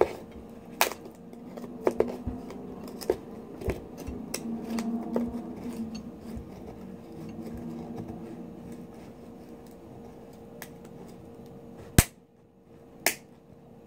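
Serrated kitchen knife clicking and scraping against a pearl oyster's shell as it is worked in to cut the tough adductor muscle holding the shell shut. The sharp clicks come irregularly, the loudest about twelve seconds in and another a second after it.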